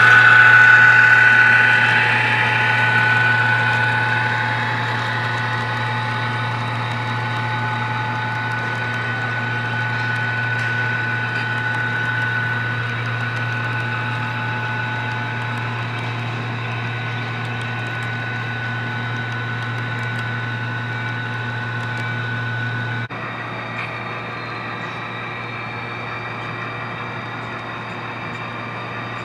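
HO scale model freight train running: a steady hum with a high whine from the Northern Pacific SD50 and Santa Fe Dash 9 model diesels and their cars. It is loudest as the lead locomotive passes close at the start, then slowly fades as the freight cars roll by, and the sound changes abruptly about 23 seconds in.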